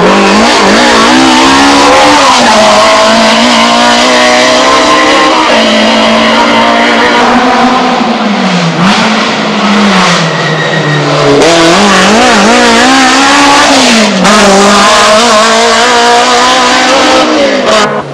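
Competition car engine at full throttle, very loud, its pitch climbing and dropping again and again as the driver works through the gears and lifts for the bend.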